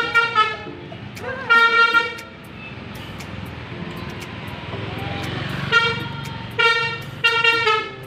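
Basuri telolet horn on a Hino tour coach sounding in short broken-off blasts, about five of them with gaps between, the coach's engine running in the pauses. The horn sounds in fits and starts, which an onlooker puts down either to the button being pressed that way or to an error in the horn.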